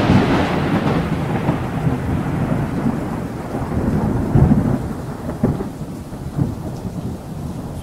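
Thunder rumbling and slowly dying away over a hiss of rain, swelling again briefly about four seconds in.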